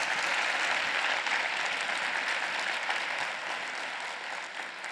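Audience applauding: dense, steady clapping from a large crowd in a hall, gradually fading toward the end.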